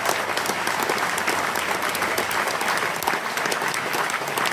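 Concert hall audience applauding steadily at the end of a song: dense clapping from many hands.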